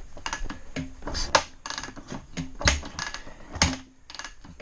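Kickstarter of a 2002 Honda CRF450 four-stroke single being kicked through several times, about a second apart, each stroke a sharp mechanical clack with a dull thud as the engine turns over without firing. These are priming kicks with fuel and choke on, drawing fuel into the cylinder before the real start attempt.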